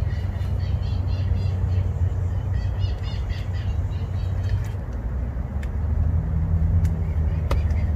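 Outdoor background: a steady low rumble, with birds chirping over the first few seconds and a few light clicks in the second half.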